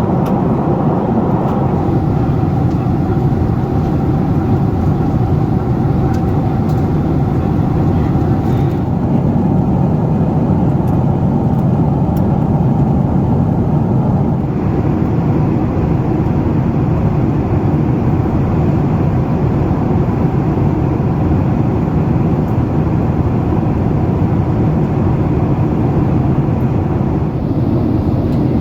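Steady cabin noise inside a Boeing 767-400ER airliner: the jet engines and rushing airflow, mostly low in pitch, with a higher hiss joining about halfway through.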